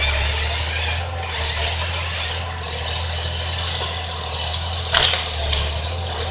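Timberjack forestry harvester's diesel engine running steadily as the machine moves with its boom raised. A sharp knock comes about five seconds in.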